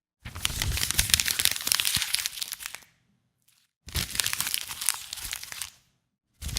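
Crinkling, crumpling noise of something like paper or plastic being scrunched, in two long bursts of about two seconds each, with a third starting near the end.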